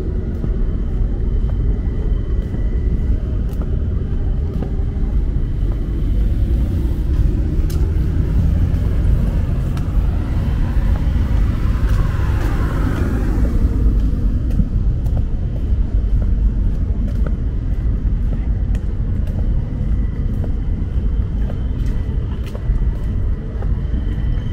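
Steady low rumble of city road traffic, with one vehicle passing close by near the middle, its noise swelling and then fading.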